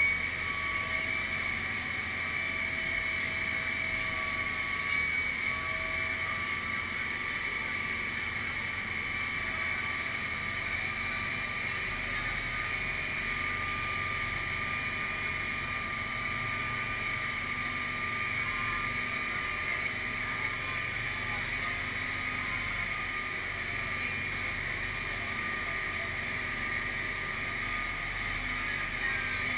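Amphibious truck running steadily while afloat, its engine and the water rushing along the hull making a continuous, unchanging noise.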